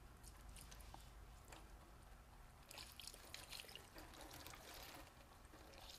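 Hot mineral spirits poured onto a tar-coated neon sign transformer in an aluminium foil pan: a faint splashing trickle, a little louder for a couple of seconds in the middle.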